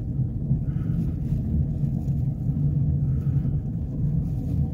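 Steady low rumble inside a pickup truck's cab as it drives along the railway track.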